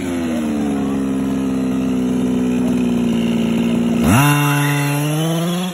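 Two-stroke gas engine of a 1/5-scale Losi 5IVE-T RC truck running at high revs, its pitch sagging slowly. About four seconds in the revs dip and then climb sharply, and they fall away right at the end.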